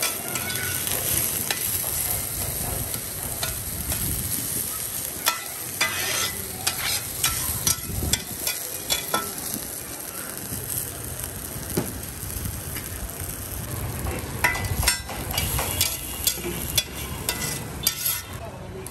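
Quail eggs with onion and green chilli sizzling in oil on a flat metal griddle. A metal spatula clicks and scrapes against the griddle, sharply and many times, mostly after the first few seconds.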